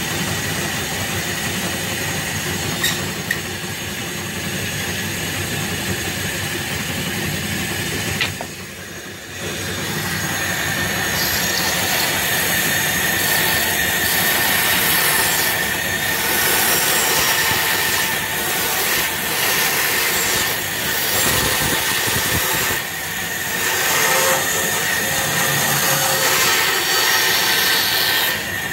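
Bandsaw running and cutting through a thick curved piece of layered wood: a steady mechanical noise, with a high whine that sets in about a third of the way through and holds.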